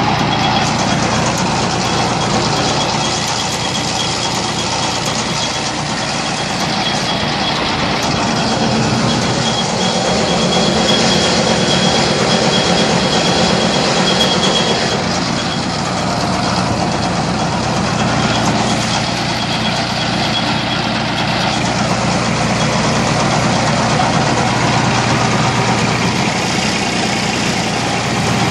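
Tractor engine running steadily while a mounted Amazone ZA-F 1204 fertiliser spreader is driven from the PTO. A thin, high whine runs through the first half.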